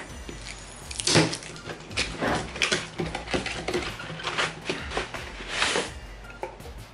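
Cardboard packaging being handled: a box's flaps prised open and the inner box slid out, with irregular scraping and rustling of cardboard.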